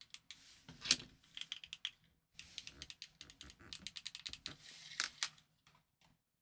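Rapid small clicks and taps from a handheld remote-control fob being handled: its buttons pressed and its telescopic aerial pulled out. The loudest click comes about a second in, and the clicking stops shortly before the end. Nothing answers the presses, as the remote is not yet paired to its relay receiver.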